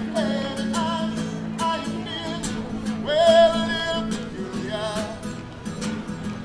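A man singing held, wavering notes over his own strummed acoustic guitar.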